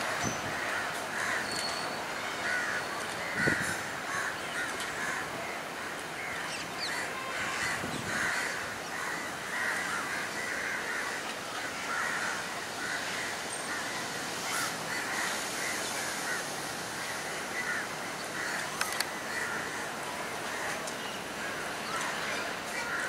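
Crows cawing over and over, several short calls a second, with a brief knock about three and a half seconds in.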